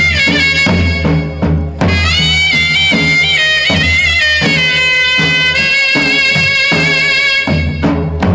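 Folk music for a Charani Ras dance: a reedy wind melody holds and steps between notes over a steady drum beat of about two strokes a second.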